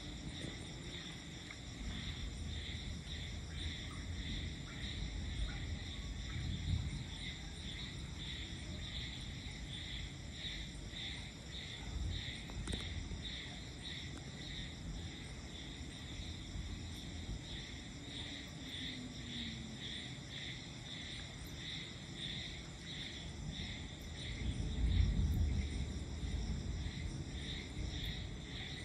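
Night insects, crickets or similar, chirping in a steady pulsing chorus, a few pulses a second. Low rumbles sit under it and swell loudest near the end.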